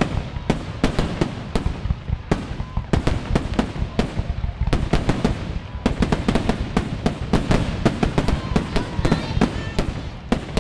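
Fireworks finale barrage: aerial shells launching and bursting in rapid succession, several sharp bangs a second with no let-up.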